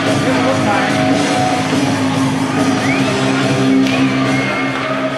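Music with long held low notes.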